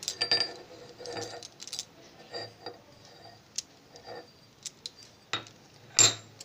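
Steel pestle knocking and scraping inside a steel mortar of crushed garlic and green chilli, with scattered short metallic clinks that ring briefly. The loudest knock comes near the end.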